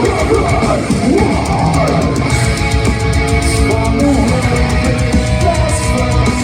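Heavy metal band playing live in an arena: distorted electric guitars over fast, dense drumming. A quick run of guitar notes gives way, about two seconds in, to held notes and chords.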